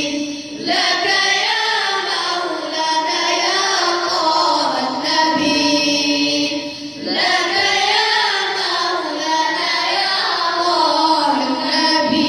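A group of voices singing a devotional Islamic praise song (madih) as one melody line, with short breaks for breath about half a second in and about seven seconds in.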